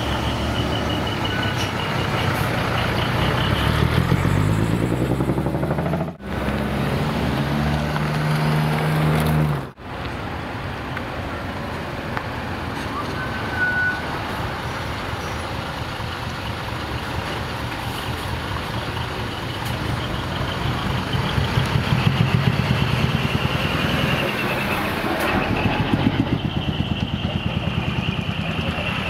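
Large decorated trucks' diesel engines pulling away, their pitch climbing twice as they rev up through the gears. Later comes a steadier engine sound with a regular throb in the exhaust.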